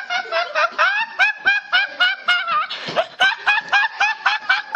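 A young man laughing uncontrollably in a high-pitched, squeaky laugh: rapid even pulses, about six a second, broken by one gasping in-breath about three seconds in.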